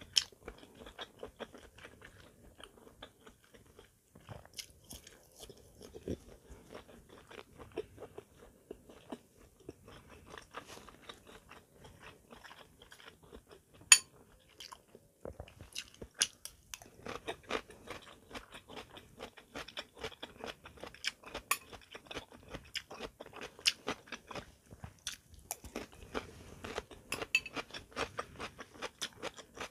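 A person chewing and crunching food, heard as a dense run of small crunches and wet mouth clicks. There is one sharp click about 14 seconds in and a brief lull just after it.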